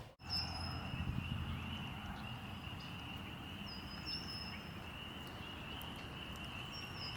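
Spring wetland ambience: a steady high-pitched chorus that never lets up, with short bird whistles over it several times and a low rumble of wind.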